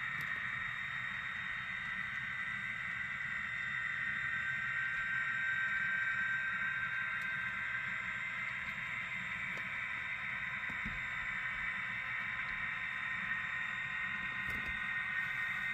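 Model freight train rolling along the layout track: a steady whir from the locomotive's motor and the wheels on the rails.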